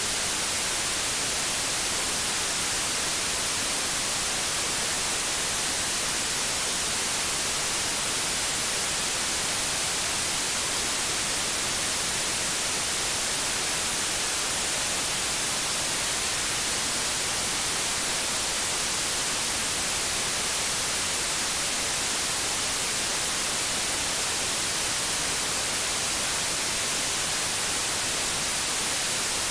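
Steady white noise: an even, unchanging hiss, strongest in the high end.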